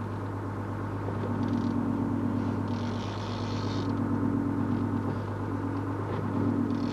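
Fishing boat's engine running steadily with a low hum that swells and eases. A hiss comes and goes three times over it.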